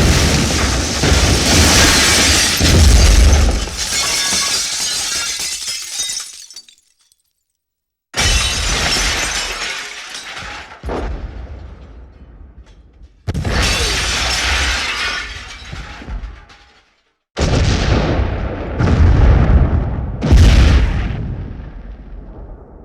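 Explosion sound effects, four in a row with short silences between: each starts with a sudden deep blast and fades over several seconds. The second has a further blast a few seconds in, and the last has two more blasts close behind its first.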